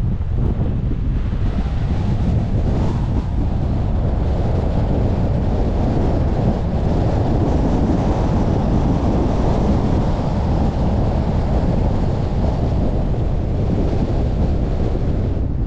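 Wind rumbling steadily on the microphone of a moving car-mounted camera, mixed with the car's road noise, a little stronger in the middle as the car gets going.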